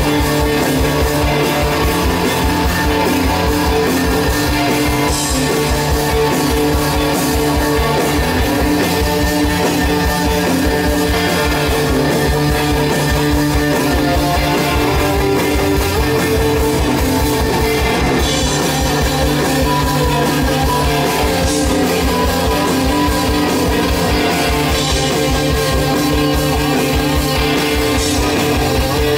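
Live psychedelic fuzz rock band playing: electric guitars over bass and a drum kit keeping a fast, steady beat.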